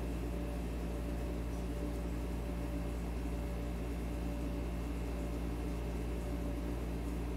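Steady low electrical hum over a faint hiss, with nothing else standing out.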